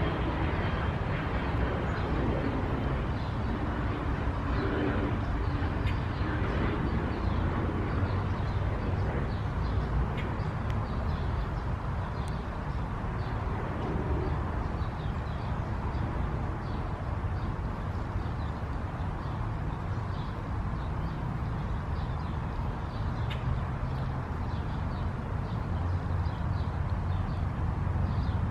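Steady outdoor background noise: a low hum under an even hiss, with faint short high chirps scattered through it.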